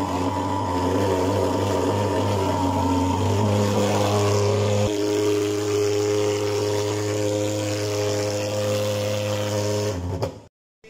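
Gasoline-powered thermal fogging machine running with a steady, loud drone, its pitch shifting slightly about four to five seconds in; the sound cuts off abruptly near the end.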